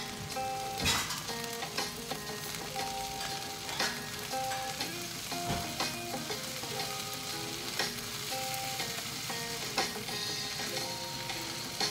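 Beef sizzling as it simmers in its marinade in a skillet, with a few sharp clinks of utensils and melodic background music playing under it.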